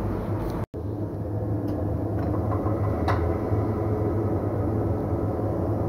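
Wheel balancer spinning a tyre and alloy wheel on its shaft during a balancing run: a steady low hum. It breaks off for an instant just under a second in, and a few faint ticks come through.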